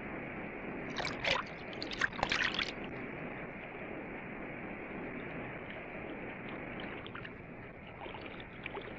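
Steady rush of river rapids, with a short cluster of sharp splashing crackles about one to three seconds in.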